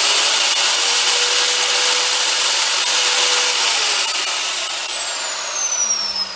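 Mekkan MK83104 1500 W electric router running off-load at its top speed of 30,000 rpm, a loud high steady whine. About three and a half seconds in it is switched off and the whine falls away as the motor spins down.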